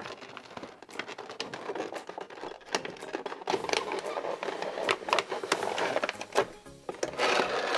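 Cardboard box and clear plastic clamshell packaging being handled and pulled apart: a continuous run of crinkling, rustling and irregular clicks.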